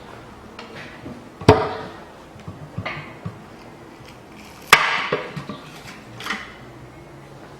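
Two sharp metal knocks with a ringing decay, about three seconds apart, with lighter clinks between and after them, as tools work the oil pan loose from the engine block.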